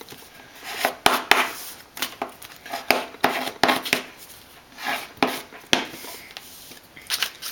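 Folded paper being creased on a wooden desk: a small plastic object is rubbed hard over the folds in short scraping strokes, with taps on the desktop in between.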